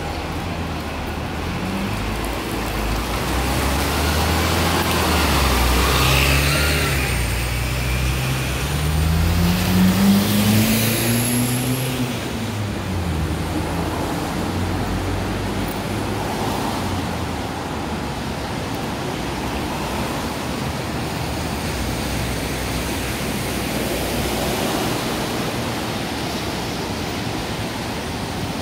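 Double-decker bus engine pulling away from the stop, its note climbing over several seconds and then fading. After that, steady traffic noise from the wet road.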